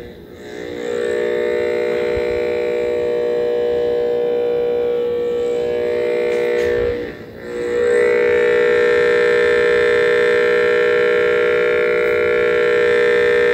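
Entech wideband powerline and EMI noise analyzer's speaker putting out a loud, steady buzzing tone as it picks up radiated electromagnetic interference from the Furman PL-Plus DMC power conditioner's chassis. The buzz fades briefly just after the start and again about seven seconds in, then comes back.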